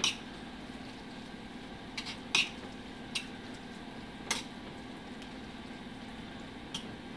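A utensil stirring ground beef and condensed soup in a stainless steel skillet, knocking and scraping against the pan in several sharp clinks, the loudest about two and a half seconds in. A steady low hum runs underneath.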